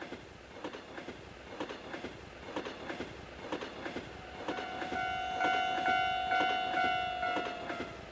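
Recorded train sound: wheels clattering in a quick rhythm over the rail joints, growing louder, then a long steady horn from about four and a half seconds in that dips slightly in pitch as it ends.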